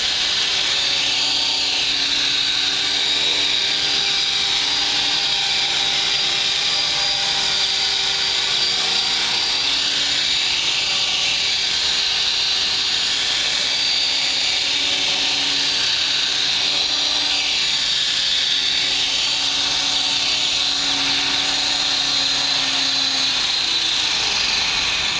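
Honey Bee King 3 electric RC helicopter hovering just above the ground: a steady high motor whine over the lower hum of the spinning rotor. Its main blades are patched with scotch tape and balanced.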